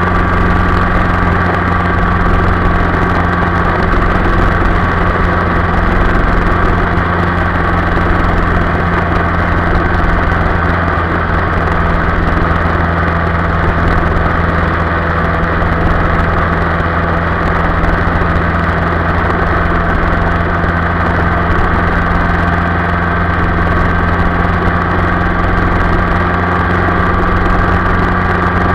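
Yamaha Y15ZR's 150 cc single-cylinder four-stroke engine running at a steady cruising speed, its even drone mixed with a steady rush of riding noise.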